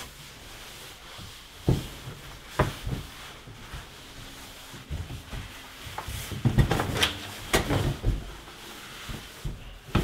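Scattered knocks and bumps with rustling and rubbing as a person in a disposable protective coverall clambers up in a cramped utility closet, bracing against the water heater and pushing up into the attic hatch. The knocks come singly about two seconds in, then bunch together with more rubbing a little past the middle.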